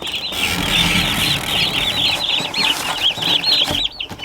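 Baby turkey poults peeping: many high chirps overlapping in a continuous chorus, dropping briefly near the end.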